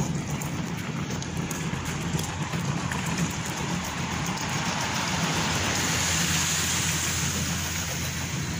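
Steady city street noise: the hiss of road traffic, swelling for a couple of seconds in the second half.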